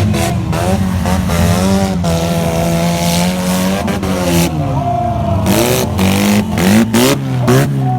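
Demolition-race car engines revving up and down together, with a rapid run of sharp bangs in the last few seconds.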